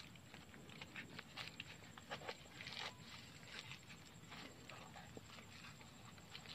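Faint, irregular scratching and clicking as a mud crab is pinned underfoot and its claws are bound with string.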